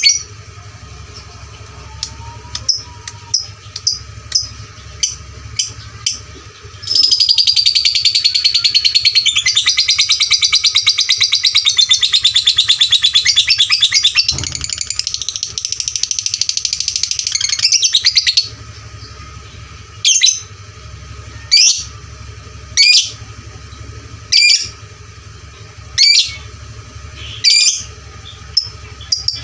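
Lovebird calling: a string of sharp chirps, then a long unbroken run of rapid chattering song lasting about eleven seconds, then single sharp chirps about every second and a half.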